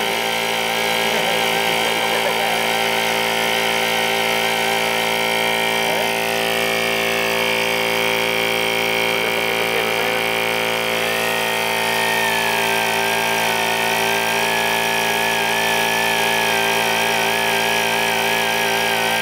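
Pneumatic die grinder running steadily, its high whine wavering as the buffing bit is pressed against a rubber inner tube to rough the surface for a patch.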